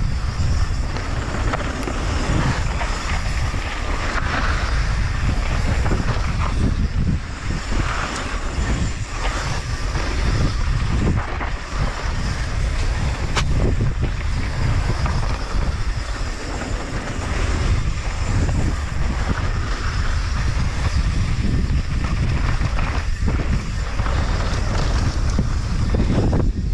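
Wind buffeting the microphone of a mountain biker's camera on a fast downhill run, over the rolling of knobby tyres on loose dirt and the rattle of the bike over bumps. The noise stays steady, with small knocks scattered through it.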